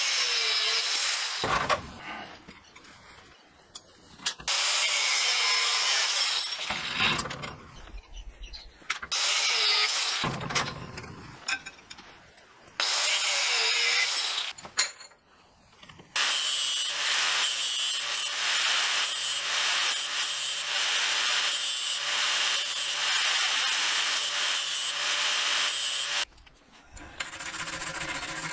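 Handheld angle grinder cutting through 7 mm steel rebar, in several separate bursts with short pauses between them and the longest steady cut of about ten seconds in the second half.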